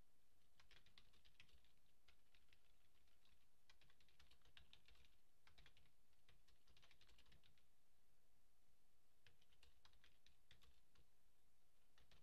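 Faint typing on a computer keyboard, in several quick bursts of keystrokes with short pauses between them.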